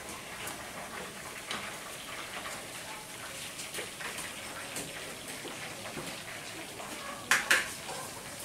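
Kitchen noise: a steady crackling hiss with faint small clinks, then two sharp clatters close together about seven seconds in.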